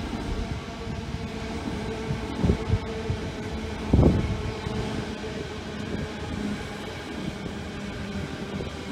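Trains moving along the tracks beside the platform: a steady low hum, broken by dull thumps about two and a half seconds in and a louder one about four seconds in.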